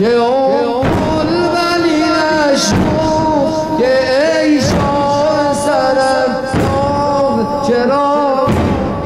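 Muharram mourning music: a loud, wavering melody of long held and sliding notes, punctuated by heavy drum strokes about every two seconds.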